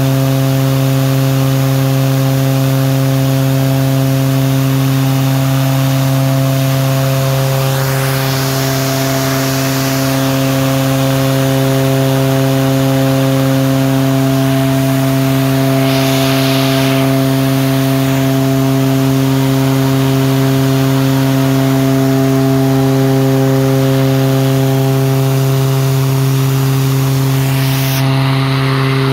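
OV-10D+ Bronco's Garrett T76 turboprop engine running at steady power during an engine trim ground run: a loud, even propeller drone with brief swells of rushing noise twice.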